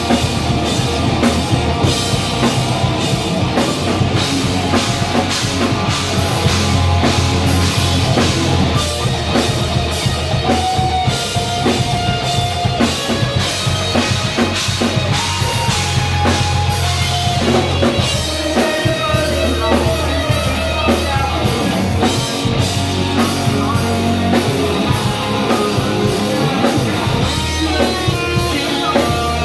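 Live rock band playing loud: drum kit, electric guitars and bass guitar.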